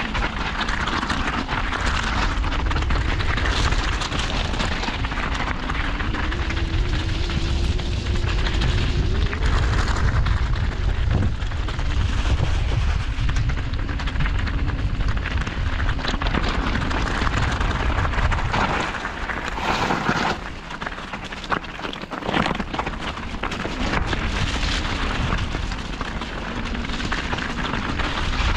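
Wind rushing and buffeting on the camera microphone of a mountain bike descending a rough gravel and mud trail, with the tyres running over stones and the bike rattling. The rumble eases briefly about twenty seconds in, then builds again.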